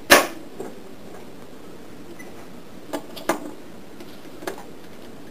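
Metal gearbox gears and shafts knocking and clinking as they are handled and fitted together. A sharp knock comes right at the start, then lighter clinks: two close together about three seconds in and one more about a second later.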